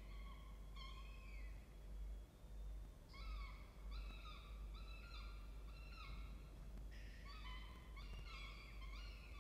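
Peregrine falcon chicks begging at a feeding with high, drawn-out, slightly falling calls, sometimes two at once. There is one call about a second in, a short pause, then a steady run of calls from about three seconds in, over a low hum.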